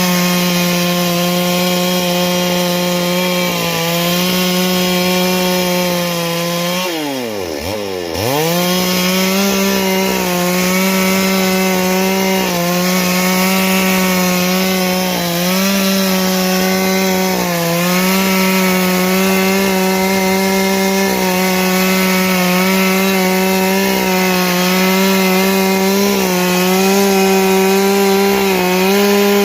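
Two-stroke chainsaw running at full throttle while cutting a tree, its engine note sagging slightly now and then as the chain bites. About seven seconds in, the engine is pulled down hard under the load and then climbs back up to speed.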